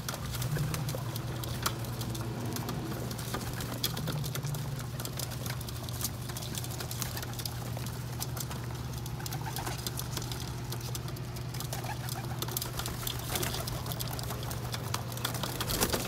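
A flock of feral pigeons feeding on sunflower seeds: many quick, irregular taps of beaks pecking on the ledge, with cooing and shuffling wings. Near the end comes a burst of wingbeats close by.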